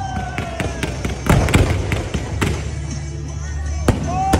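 Aerial fireworks going off: several sharp bangs, with a dense burst of crackling about a second and a half in. Tones sliding down in pitch are heard near the start and again near the end.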